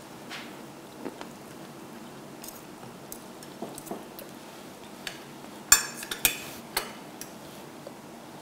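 Cutlery clinking and tapping on dinner plates as people eat. Scattered light clinks, with a burst of several sharper, louder clinks about six seconds in.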